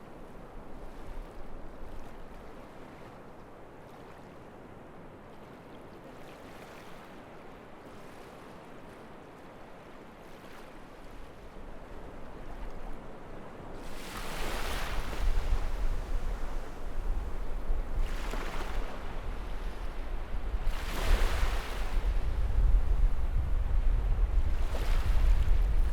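Waves washing onto a beach with strong wind. About halfway through the wind picks up, buffeting the microphone with a low rumble, and several louder waves break over it.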